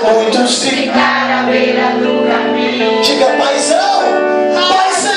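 Live gospel worship music, loud and steady: a man singing into a handheld microphone over held instrumental chords.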